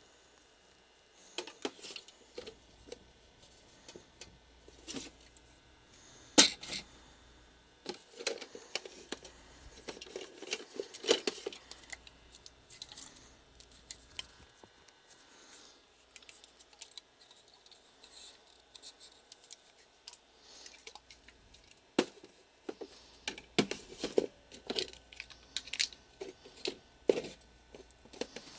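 Handling noises as a mini fridge is opened and the drinks inside are checked: scattered clicks, taps and rustles, the sharpest a single click about six seconds in, with busier stretches in the middle and near the end.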